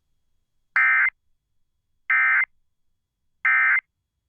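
Emergency Alert System end-of-message data tones: three identical short bursts of digital data signal, about a second apart, marking the end of the alert.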